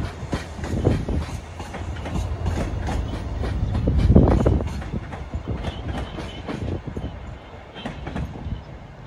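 TransPennine Express diesel multiple unit moving out along the far platform: a low engine rumble with its wheels clattering over rail joints, loudest about four seconds in, then fading as it draws away.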